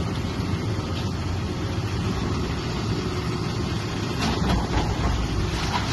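Caterpillar 324E tracked excavator's diesel engine running steadily, with a brief rush of noise a little after four seconds in.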